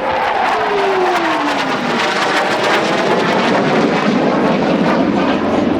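RSAF Boeing F-15SG fighter jet passing in a display flight, its twin jet engines making a loud, continuous noise. In the first two seconds a whine falls in pitch as the jet goes by.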